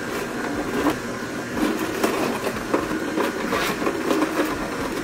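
Nama J2 cold-press juicer running, its slow auger pressing whole fruit and vegetables: a steady motor hum with irregular cracks and crunches every second or so.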